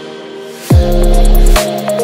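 Electronic chillstep background music with deep sub-bass and kick drums that fall sharply in pitch. The bass drops out briefly, then comes back in with a kick less than a second in.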